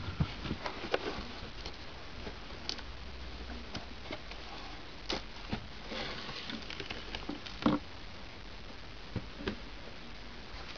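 Cardboard box flaps and cellophane wrap rustling and tapping as a boxed camera is handled and slid out, with scattered light knocks, the loudest a little before eight seconds in.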